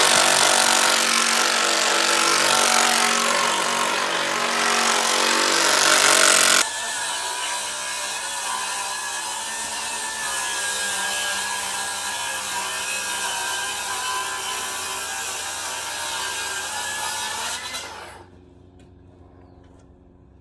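A power saw running and cutting. The sound drops suddenly to a quieter, steadier cut about a third of the way in and stops near the end.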